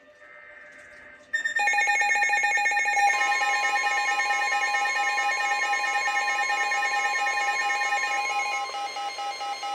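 NOAA Weather Radio alert going off: a sudden, loud mix of electronic alarm tones, with rapid beeping and repeating beep patterns over steady tones, starting about a second in. It announces an incoming severe thunderstorm warning.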